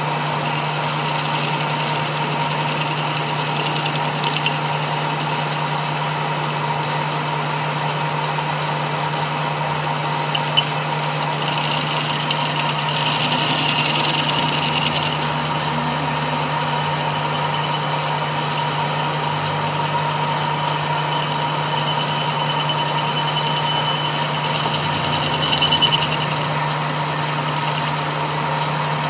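Metal lathe running steadily with a constant motor hum while a cutting tool turns down a steel shaft. A higher-pitched cutting squeal swells for a few seconds around the middle and again briefly near the end, with a single sharp click just before the middle.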